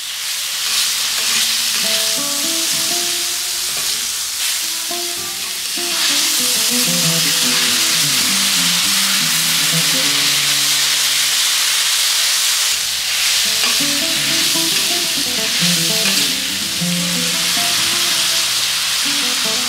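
Food sizzling and frying on a hot flat steel griddle while it is stirred with metal spatulas. The sizzle grows louder about six seconds in. Light background music plays underneath.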